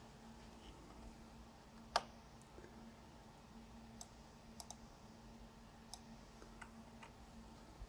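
A few sharp clicks over a faint steady hum: one louder click about two seconds in, then several fainter, irregular ones.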